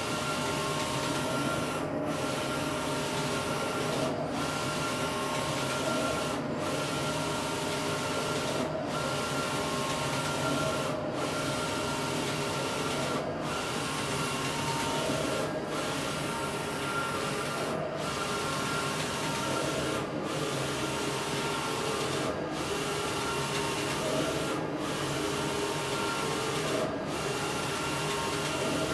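Roland wide-format inkjet printer printing on vinyl film, its print-head carriage sweeping across the sheet. A steady mechanical whir with a few held tones, broken by a brief dip about every two seconds.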